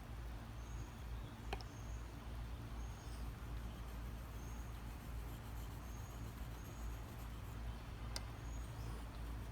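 S30V steel knife blade stroked across a Shapton Pro 5000-grit water stone, a soft scraping over a steady low rumble. Faint short high chirps repeat about once a second, and there are two sharp clicks.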